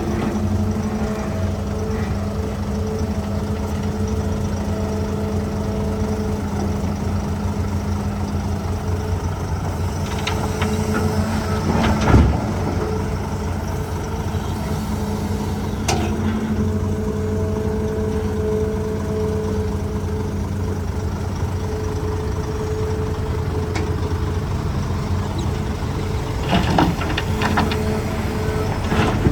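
Hitachi ZAXIS200 excavator's diesel engine running steadily, with a higher hum that fades in and out as it works. A sharp clank about twelve seconds in, a lighter one a few seconds later, and a short run of knocks near the end.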